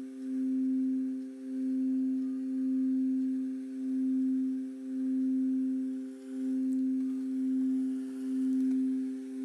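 Singing bowl for the root chakra, ringing with one steady low tone and a few fainter overtones above it, the sound swelling and dipping about once a second.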